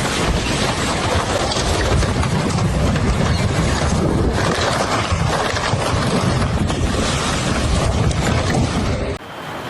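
Storm wind and rough sea roaring, the wind buffeting the microphone in a heavy low rumble. It cuts off suddenly near the end.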